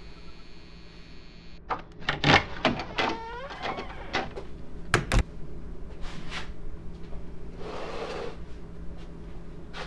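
A door creaking open with a run of clicks. Then two sharp knocks in quick succession about five seconds in, two soft thuds of steps, and a short rustle near the end.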